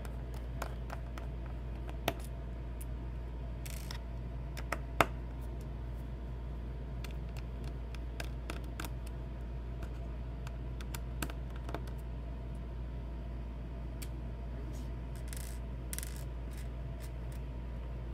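Scattered small metallic clicks and taps of a screwdriver and tiny screws as a MacBook Pro's hinge screws are taken out, the loudest about five seconds in, with a few brief rustles, over a steady low hum.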